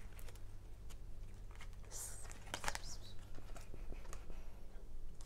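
Oracle cards being handled and shuffled: scattered short flicks of card stock, with two longer rustles about two seconds and nearly three seconds in, over a steady low hum.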